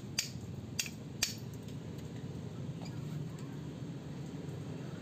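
Three sharp metallic clinks in the first second and a half, about half a second apart: metal tools and parts knocking together while the valves are worked out of a motorcycle cylinder head. A steady low hum runs beneath.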